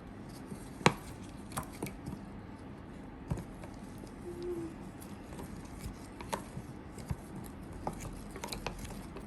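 Light, irregular clicks and taps of a stirrer against a container as a slime mixture is stirred slowly.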